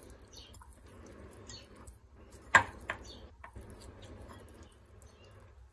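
Hands rubbing salt and turmeric into raw rohu fish pieces in a glass bowl: faint wet handling, with a sharp click about two and a half seconds in and a couple of softer clicks just after.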